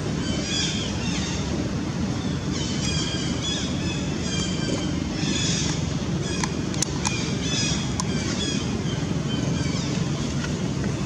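Outdoor ambience: a steady low rumble with short, high chirping calls repeated through it and a few sharp clicks about two-thirds of the way in.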